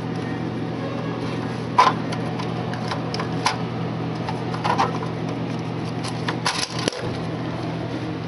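Clicks and knocks from hands working inside an open vending machine around its coin mechanism and coin box. The sharpest click comes about two seconds in, and a quick cluster of knocks follows near the end. A steady mechanical hum runs underneath.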